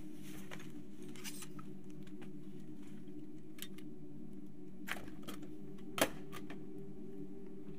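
Cloth rustling as a heavy coat is draped over a post, over a steady low hum. Then a few light clicks and one sharp click about six seconds in, as a door's latch is worked.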